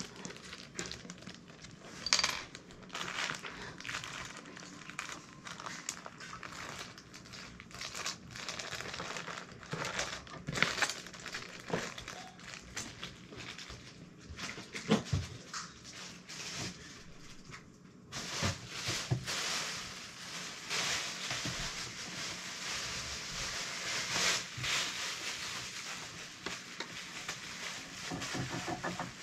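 Light scattered clicks, taps and rustles of hands working at a sewing machine's needle and thread while it is being threaded; the machine is not running. About two-thirds of the way through, a steady hiss comes in underneath.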